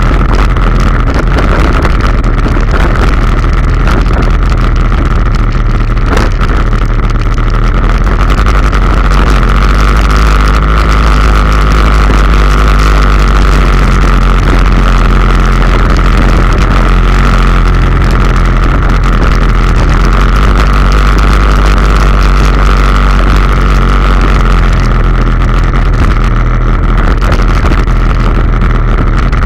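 Loncin XWolf 700 ATV's single-cylinder engine running steadily under way, heard close from on board the quad, with a steady whine above the low engine drone.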